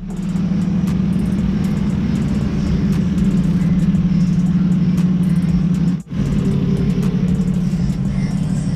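Lexus IS300's 2JZ-GE straight-six engine idling steadily, a low even rumble with a strong steady hum. It breaks off for an instant about six seconds in and carries on unchanged.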